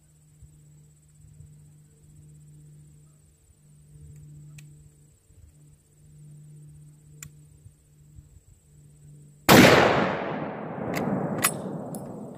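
A single shot from a .416 Ruger bolt-action rifle, about nine and a half seconds in, followed by a long echo that fades over the next few seconds. A few sharp clicks follow the shot.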